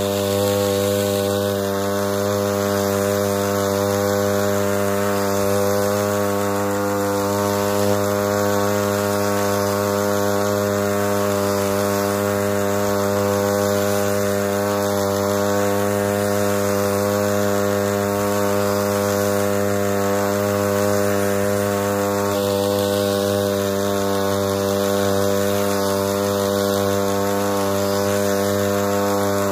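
Motorized backpack crop sprayer's pump motor running at a constant speed while spraying, a steady buzzing drone.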